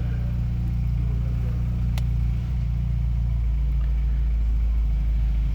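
Car engine idling, a steady low hum heard from inside the cabin, with a single sharp click about two seconds in.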